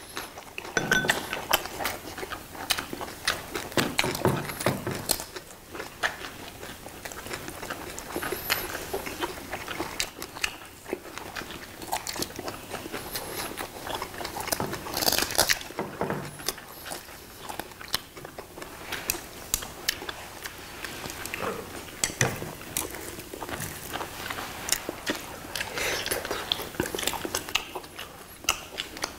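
Close-miked eating sounds: chewing and biting mixed with irregular sharp clicks and clinks of metal kitchen scissors and tongs cutting up braised dried pollack on a ceramic plate.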